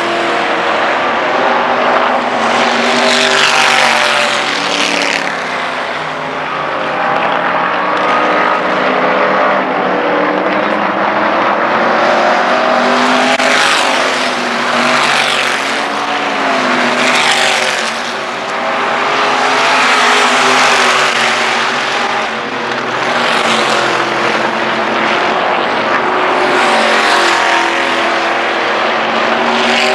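A field of dirt-track race cars running laps with their engines at full throttle. The engine noise swells and fades over and over as cars pass, with pitch bending up and down as they lift off and accelerate through the turns.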